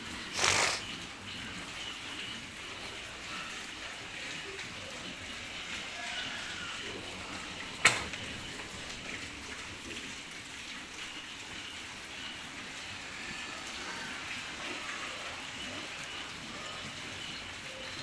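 Young pigs feeding side by side at a trough: steady wet munching and snuffling. A short, loud burst of noise comes about half a second in, and a single sharp knock about eight seconds in.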